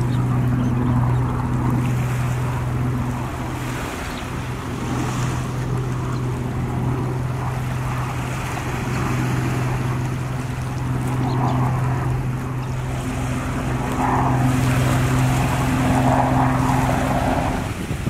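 Small surf waves washing up and draining back over sand, with wind buffeting the microphone. Under it runs a steady low hum that stops shortly before the end.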